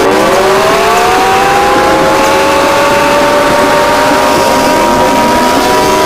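Very loud electronic alarm tones of a fictional Emergency Alert System alert: several tones slide up in pitch over the first second or so, then hold together as a steady, unwavering chord.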